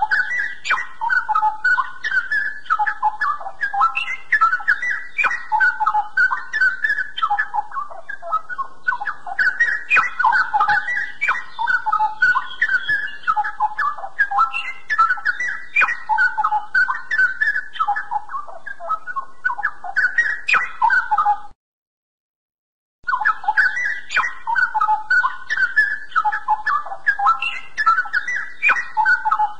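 Straw-headed bulbul (cucak rowo) singing a long, continuous run of rapid, rich warbled notes. The song cuts out suddenly about 21 seconds in and resumes a second and a half later.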